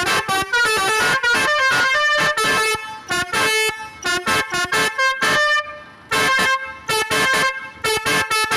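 Basuri V4 telolet bus horn playing a quick tune of short, changing notes in runs, with a brief pause a little past halfway before it starts again.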